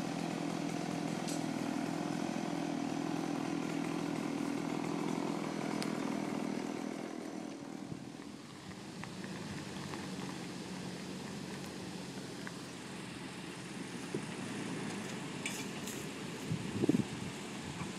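A small engine running steadily, fading out about seven seconds in. After that a quieter steady engine hum with a few light clicks, and a short pitched sound that rises and falls near the end.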